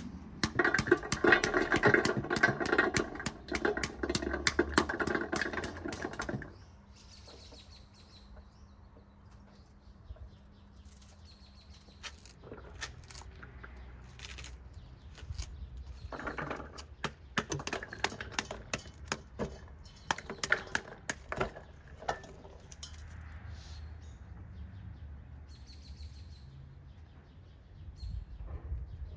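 Pomegranate being broken apart by hand, a loud dense crackle of tearing rind and loosening seeds for about six seconds. After that, a knife cuts and scores the tough rind in short crackling runs, with small birds chirping now and then.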